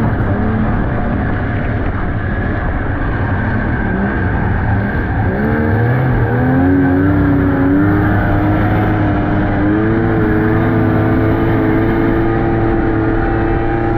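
Snowmobile engine running on the move, its pitch wavering up and down about five seconds in, then climbing and holding steady.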